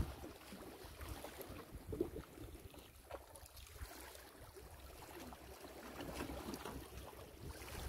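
Faint seaside ambience: a low, steady rumble of light wind and calm sea water.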